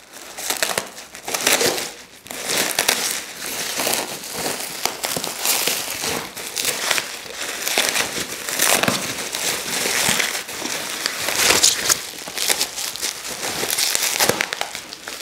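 Packaging being handled and pulled off a steel dip attachment: a continuous, irregular rustle with many small crackles.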